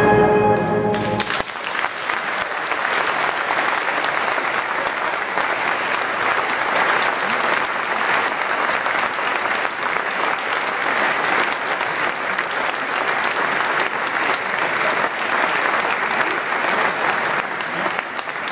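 The wind band's last chord sounds for about a second and then cuts off, and the audience breaks into steady applause.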